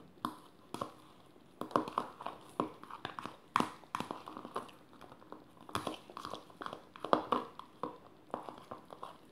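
A fork mashing banana in a bowl: irregular clicks and taps of the fork against the bowl, mixed with soft squishing of the fruit.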